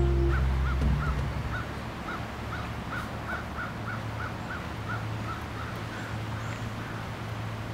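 A bird calling a long series of short, evenly repeated notes, about three a second.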